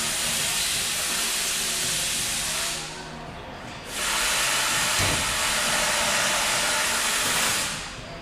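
Two long bursts of pressurised spray hissing, each about three to four seconds, with a short pause between them.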